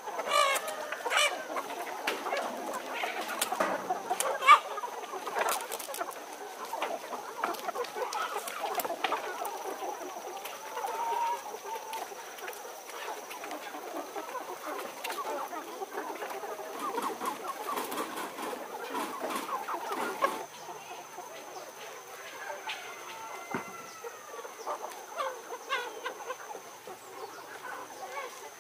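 A flock of hill chickens clucking and calling, mixed with scattered sharp clicks and knocks. The activity is busy for about the first twenty seconds, then drops suddenly to a quieter stretch with only a few calls.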